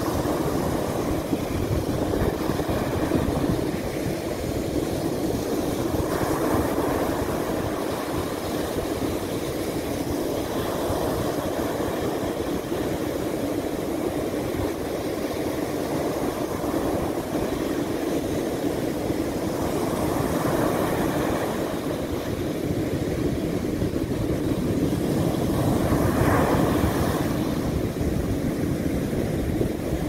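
Sea surf breaking on a sandy beach: a continuous rush of waves that swells each time a wave breaks and its foam washes up the sand, loudest near the end.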